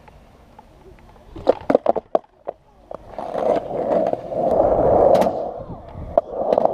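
Skateboard on tarmac: a quick cluster of sharp clacks of the deck and wheels hitting the ground about one and a half seconds in, then the wheels rolling with a steady rumble that grows louder, with one more knock near the end.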